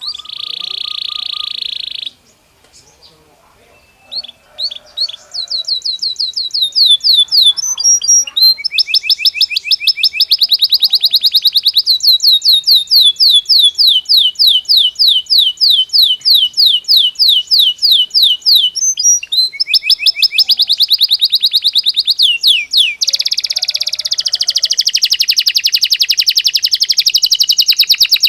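Belgian canary singing: a short buzzy note, a pause of about two seconds, then a long, loud song of rapid trills, fast runs of repeated high notes and quick sweeping phrases that carries on without a break.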